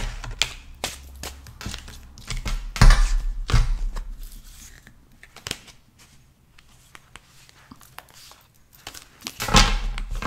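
A cardboard card box and its deck of cards being handled and opened: papery rustling, scraping and small taps, with a few dull knocks, busiest in the first few seconds and again near the end.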